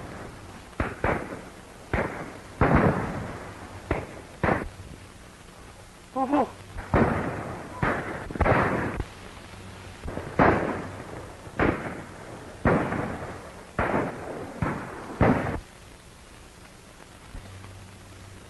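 Gunfire in a shootout: about fifteen sharp gunshots, each trailing off briefly, fired at irregular intervals of roughly a second, stopping about three seconds before the end.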